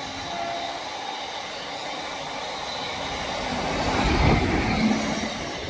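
Freight train running past on the line, a steady rumble that grows louder about four seconds in and eases again near the end.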